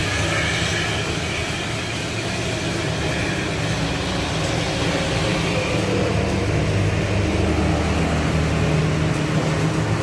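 Tour bus engine droning steadily with a deep rumble, growing louder over the second half.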